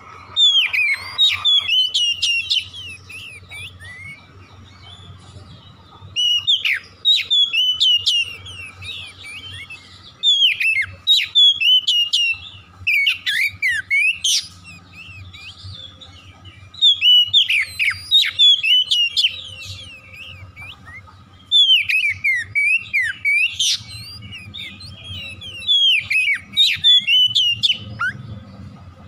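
Oriental magpie-robin (kacer) in full song: loud bouts of varied whistles, trills and rapid chattering notes, about six phrases of a few seconds each with short pauses between.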